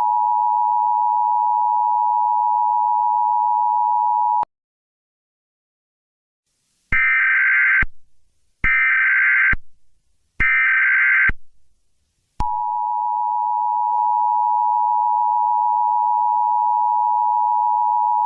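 Emergency Alert System broadcast tones. The steady two-tone attention signal cuts off about four seconds in. After a pause come three short bursts of warbling digital header data (the SAME header), each under a second, and then the attention tone starts again and holds.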